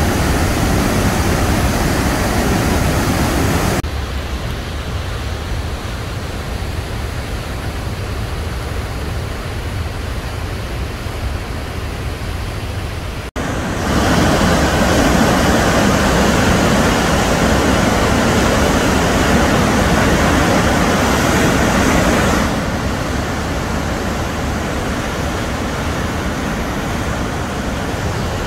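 Steady roar of Athabasca Falls, the Athabasca River pouring over rock ledges into a narrow gorge. The loudness jumps abruptly a few times: quieter from about four seconds in, louder again after a brief dropout at about thirteen seconds, and a little quieter from about twenty-two seconds on.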